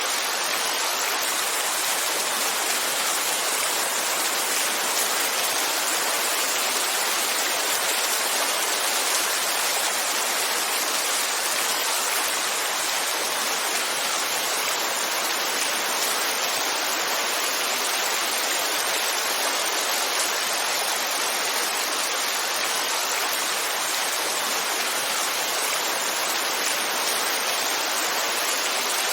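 Heavy rain falling as a steady, dense hiss, with no single drops, thunder or other events standing out.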